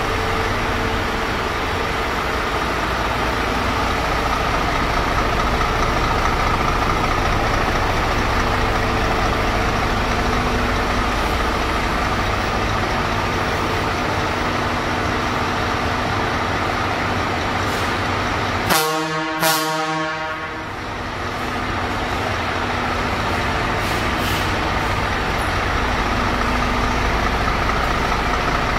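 Scania truck diesel engine idling steadily. About 19 seconds in, an air horn gives two short blasts close together, typical of a newly fitted marine air horn being tried.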